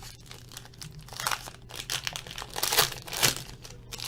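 Crinkling and rustling of trading-card packaging being handled: a short rustle about a second in, then a louder run of crinkling near the end.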